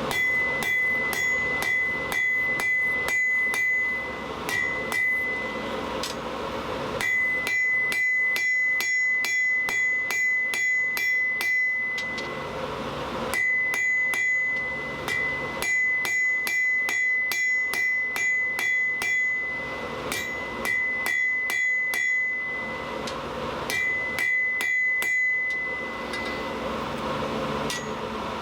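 Hand hammer striking hot mild steel bar stock on an anvil: runs of about three ringing blows a second, broken by short pauses, with the anvil ringing clearly after each strike.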